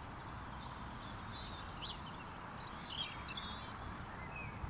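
Several songbirds singing: quick high chirps, twitters and short trills, overlapping, over a steady background hiss.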